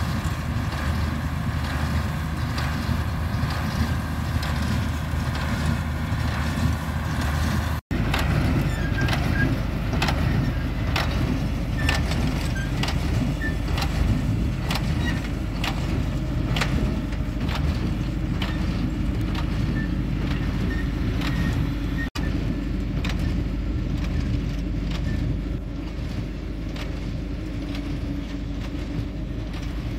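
Ford New Holland 7840 tractor's six-cylinder diesel running steadily while pulling a working New Holland Hayliner 370 small square baler, with a regular knocking from the baler as it packs hay into bales.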